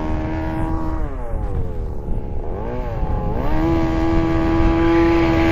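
Small two-stroke gasoline engine of a 1/5-scale RC buggy running at high revs. It drops off about a second in, then revs back up and holds a steady high pitch for the last two seconds.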